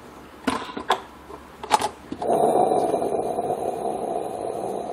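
Electric rice cooker being opened: a few sharp clicks as the lid release is pressed and the lid unlatches, then a steady rushing noise for the last few seconds with the lid up.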